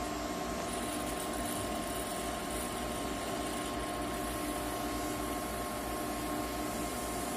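Citronix 3300 continuous inkjet printer running, its ink pump circulating cleaning solvent through the system: a steady mechanical hum with a few held tones.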